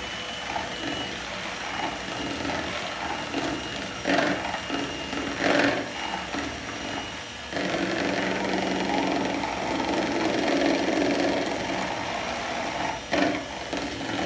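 Electric hand mixer running, its beaters whirring in a plastic mixing bowl of cake batter; the motor gets louder about halfway through. A few short knocks come through over the hum.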